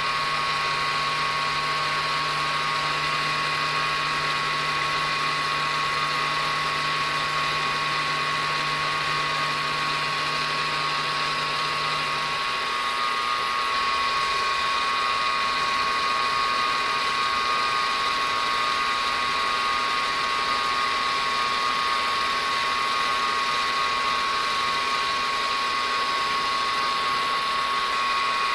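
Aciera F1 milling machine's spindle running with a small end mill cutting a copper watch case, a steady whine with the hiss of the cut. A faint low hum underneath stops about twelve seconds in.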